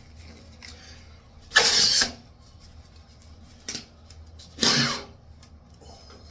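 A tight work glove being tugged and stretched onto a hand: two loud rustling, scraping pulls about three seconds apart, with a short one between them.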